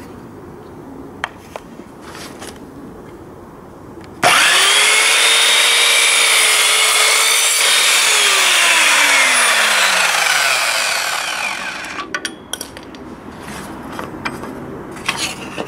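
Evolution R210CMS mitre saw's 1200 W motor starting abruptly about four seconds in and running at full speed as its multi-purpose blade makes a mitre cut through a wooden board, then switched off and winding down with a falling whine. Before it starts, light clicks and knocks of the board being set against the fence.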